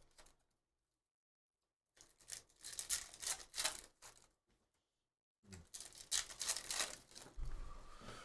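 Foil trading-card pack wrappers torn open and crinkled by hand, with the stiff chrome cards slid out of them, in two bouts of rustling separated by silent gaps.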